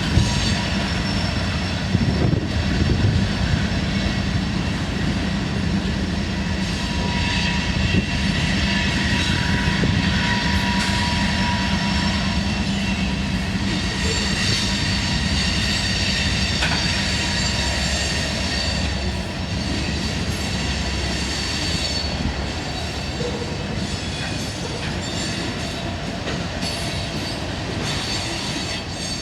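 A diesel freight train moving slowly: locomotive engines running with a steady low rumble, while steel wheels squeal on the rails in thin, high, drawn-out tones.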